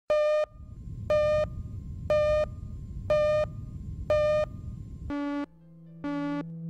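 Film countdown leader: five short high beeps, one a second, over a low crackly noise. About five seconds in, synthesizer music starts, with a steady low note and a lower beep on each beat.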